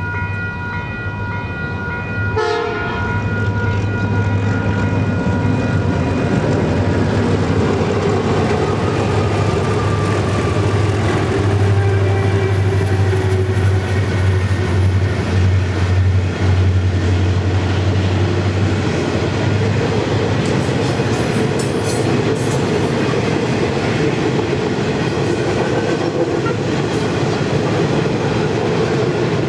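Freight train passing over a level crossing. The diesel locomotives go by with a deep, steady engine drone through the first part, then a long rake of hopper wagons rolls past with wheel clatter on the rails. Steady crossing bell tones ring at the start and fade under the train noise.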